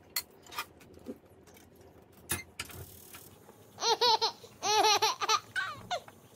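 A person laughing in two short bursts of quick, high giggles, with a few light clicks and taps before them.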